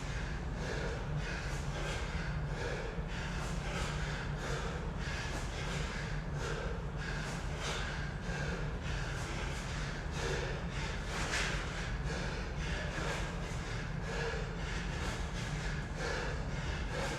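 A person breathing hard and fast during a workout, panting in a steady rhythm of about two breaths a second over a steady low drone.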